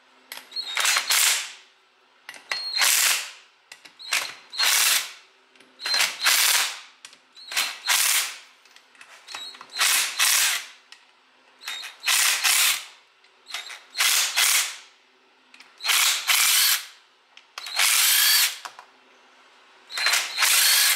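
Cordless impact wrench hammering in about eleven short bursts, one every couple of seconds, as it backs the ring gear bolts out of a GM 8.2 10-bolt differential carrier.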